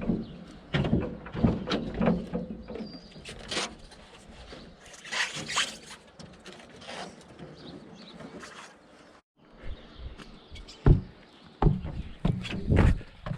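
Irregular thumps, knocks and scuffs of a new tractor tire being handled and moved, with the loudest knocks near the end.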